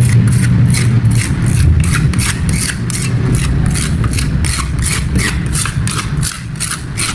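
A scraper dragged rapidly back and forth over a lead-acid battery plate grid, spreading lead paste into it, about four scratchy strokes a second. A steady low machine hum runs underneath.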